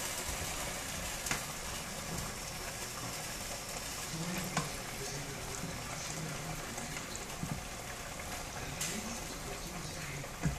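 Tomatillo sauce bubbling and sizzling steadily in a hot pan as pieces of cooked chicken are dropped in and stirred, with a spoon knocking against the pan a few times.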